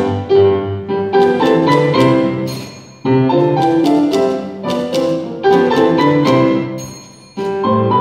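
Grand piano playing a lively piece with a typewriter used as a percussion instrument: piano chords and runs mixed with sharp clicks of typewriter keys. The music fades and then restarts sharply twice, about three seconds in and near the end.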